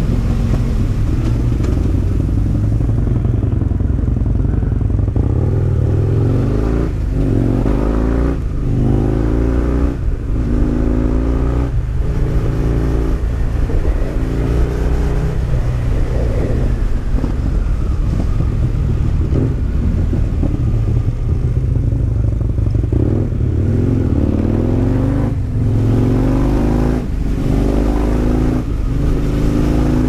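Husqvarna Nuda 900's parallel-twin engine under way, accelerating through the gears. The revs climb and drop back in a quick run of steps a few seconds in, run more evenly for a while, then step up again several times near the end.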